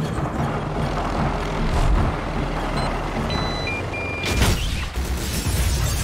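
Steady low rumble of a helicopter, then a few short electronic beeps from a bomb's detonator, and an explosion going off about four and a half seconds in.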